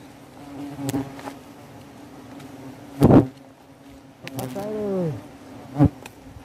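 Wasps buzzing steadily around a dug-open ground nest, one passing close with its pitch falling just before five seconds. A sharp knock about three seconds in, the loudest sound, and another shorter one near six seconds.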